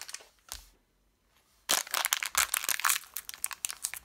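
A foil blind-bag packet crinkling as it is handled and opened by hand, with dense crackling from about a second and a half in; before that, a few soft handling sounds and a low thump.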